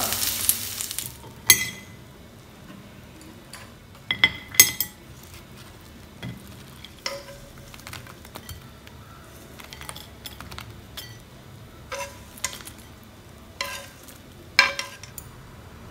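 Tofu and lemongrass sizzling in a frying pan just off the heat, the sizzle dying away within about the first second. Then scattered clinks and scrapes of a utensil against the pan and a ceramic plate as the tofu is served.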